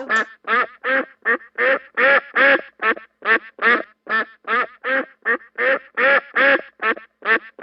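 A duck quacking in a rapid, steady run of short quacks, about three a second.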